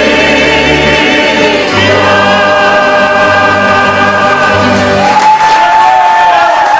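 Corfiot kantada: several voices singing in harmony, holding long chords. About five seconds in, the lower parts drop away and one high note is held to the close of the song, with applause starting near the end.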